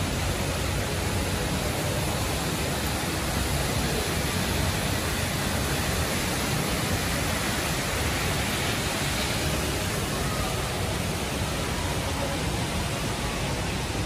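Steady rushing of the Rain Vortex, Jewel's indoor waterfall, pouring down through the dome.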